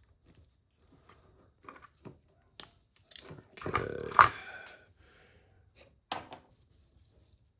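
Scattered light clicks and taps of small parts and tools being handled during RC car assembly, with a short busier cluster of handling noise about halfway through.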